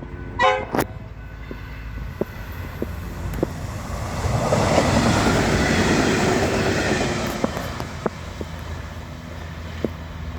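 Passenger train passing at speed. Its noise swells to a peak about four to seven seconds in and then fades, with sharp clicks of the wheels over rail joints.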